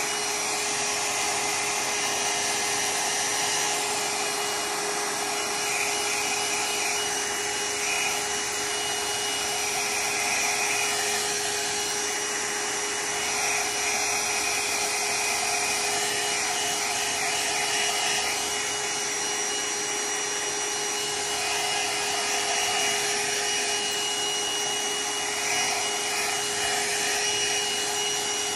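Hair dryer blowing steadily, a constant rush of air with a steady motor whine, drying a wet watercolour wash on paper.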